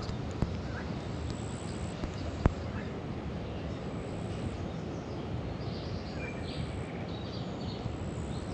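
Outdoor riverside ambience: a steady low rushing noise, faint bird chirps in the middle, and two sharp clicks, the louder about two and a half seconds in.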